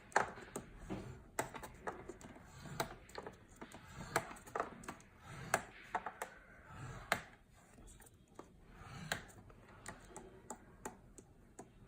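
Cardstock being scored by hand at half-inch intervals: irregular light taps and clicks of paper and scoring tool, with soft scraping in between.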